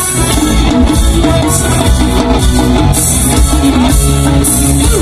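A reggae band playing: drum kit and guitar over a heavy low end.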